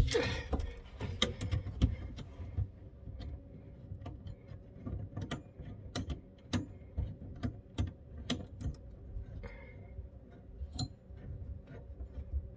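Irregular light clicks and taps of hands handling the faucet's water supply lines and threading their nuts on by hand, over a faint steady hum.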